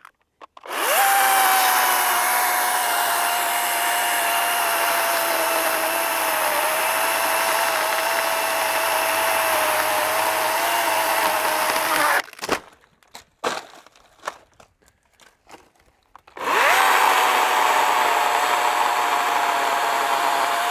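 DeWalt FlexVolt battery chainsaw with a 16-inch bar cutting a tree limb: a steady electric motor whine with chain noise. It runs for about eleven seconds, stops suddenly, and starts again about four seconds later after a pause with a few faint clicks.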